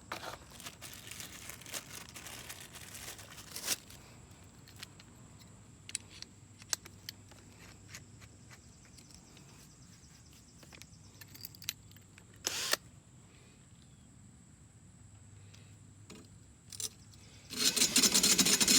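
Small clicks and handling noises as a drill-mounted blade sharpener is fitted, with a short burst of noise about two-thirds of the way in. Near the end the drill starts and runs loudly, spinning the sharpener against the lawnmower blade.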